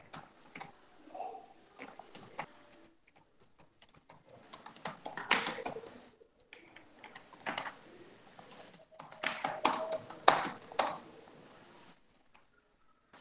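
Typing on a computer keyboard: irregular keystrokes in short clusters, with pauses between them.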